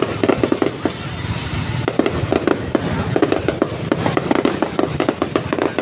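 Fireworks going off in a dense, unbroken barrage of bangs and pops, many per second.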